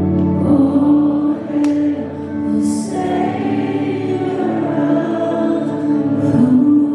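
Worship music: held keyboard-like chords with voices singing together, and a few light sharp strikes, perhaps cymbals, along the way.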